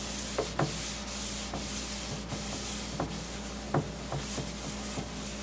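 Paper towel rubbing vegetable oil around the inside of a cast iron skillet: a steady scratchy wiping, broken by a few light knocks. This is the oil coat applied to the seasoning after cleaning.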